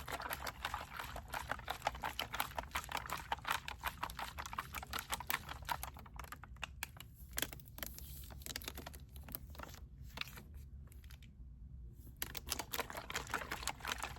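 Rapid run of light clicks and taps for several seconds, thinning out to scattered clicks, then a dense run again near the end.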